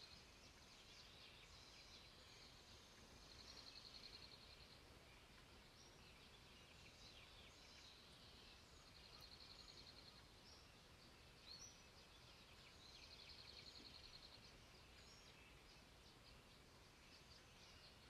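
Faint garden birdsong: a rapid trill repeated about every four to five seconds, with scattered short chirps from small songbirds between.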